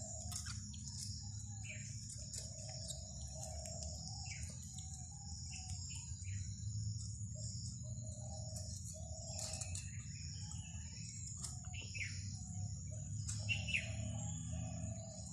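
Birds chirping and calling over a steady high-pitched insect drone, with a low rumble underneath.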